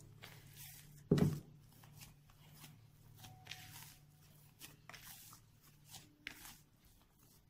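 Hands kneading soft, risen yeast dough in a plastic bowl: soft squishing and rustling as the dough is pressed and folded, with one louder thump about a second in.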